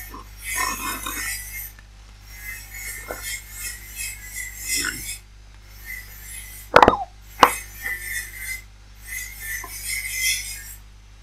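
A person drinking from a small milk carton held right at the microphone: several hissy sips of a second or two each, with two sharp clicks about seven seconds in.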